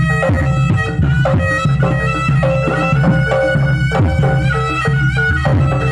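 Javanese jaranan dance music at a loud, steady level: regular drum strokes under a sustained, pitched melody line.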